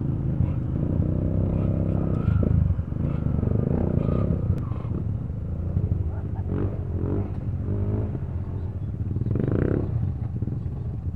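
Several dirt bike engines running at idle, with a rev rising now and then.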